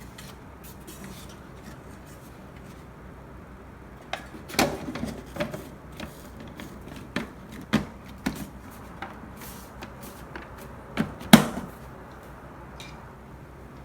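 Scattered clicks and knocks of espresso machine parts being handled and fitted back together during reassembly, with a sharper knock about eleven seconds in.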